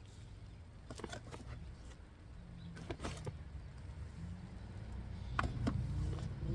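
Hands working through loose, wet soil in a potato grow bag: a few scattered rustles and light knocks over a low rumble.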